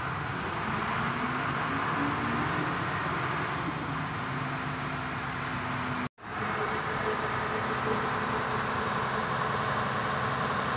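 Diesel engine of a Tadano rough-terrain crane running steadily at idle, with the crane set up on its outriggers. The sound drops out briefly about six seconds in.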